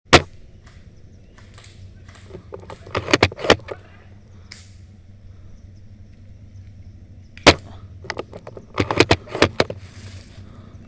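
Airsoft guns firing: sharp single shots and quick strings of several, with pauses of a few seconds between, over a steady low hum.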